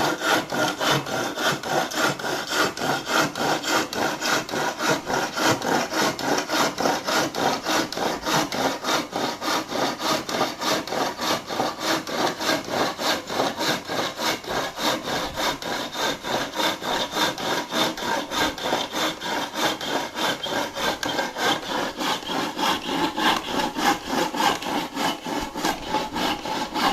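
Hand saw cutting through wood in fast, even back-and-forth strokes that keep up a steady rhythm.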